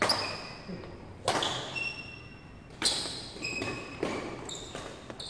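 Badminton rally: a shuttlecock struck by rackets four times, about a second and a half apart, each sharp hit echoing in the hall. Short high squeaks of shoes on the court floor come between the hits.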